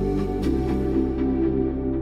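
Background music: slow ambient music of held chords that change about half a second in.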